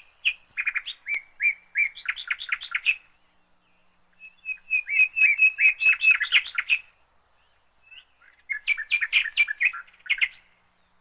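A small bird singing: three phrases of rapid chirps and trills, each a few seconds long, separated by short pauses.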